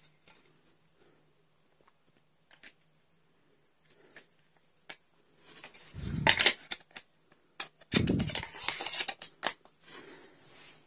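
Small plastic clicks as the battery and snap-on back cover go into a keypad mobile phone, then louder rubbing and clicking from handling the phone, about six seconds in and again about two seconds later.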